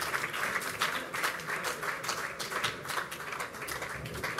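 Audience applauding, the clapping thinning out from a dense patter into scattered separate claps.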